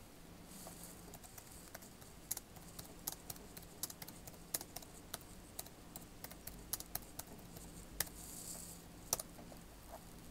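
Faint, irregular clicks of typing on a computer keyboard, a few a second with short pauses, over a low steady hum.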